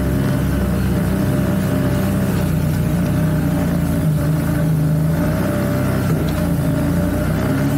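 CFMoto CForce 1000 ATV's V-twin engine running steadily at a low, even trail speed of about 17 km/h.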